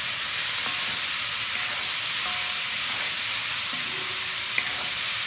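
Vegetables sizzling steadily in a hot cast-iron wok while being stir-fried with a wooden spoon, just after soy sauce and oyster sauce have gone in.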